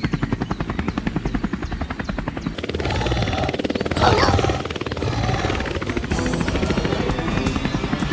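Helicopter rotor chopping: a fast, even beat of blade thumps, with music behind it. A short cry rises and falls about four seconds in.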